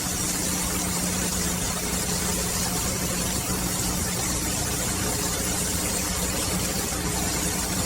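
Steady hiss with a low, even hum underneath.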